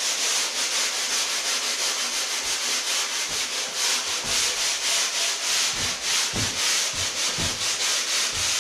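Hand-sanding the cut edge of a rigid foam insulation board: sandpaper rubbed back and forth in quick, even strokes, several a second, with a dry scratchy rasp.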